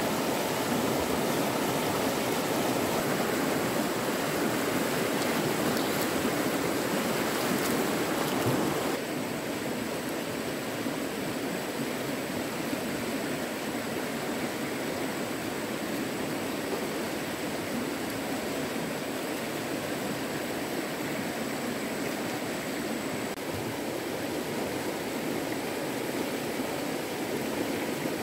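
Stream water running with a steady rush. A thin, high, steady tone sits above it. About nine seconds in, the rush drops a little and thins.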